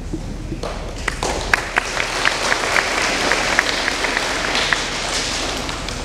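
Audience applauding, starting about half a second in and easing off near the end, with sharp individual claps standing out from the patter.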